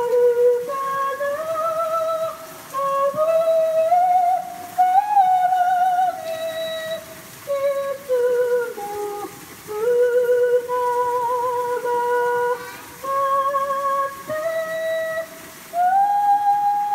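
A woman singing solo and unaccompanied: long held notes with vibrato, moving slowly up and down in phrases broken by short pauses for breath.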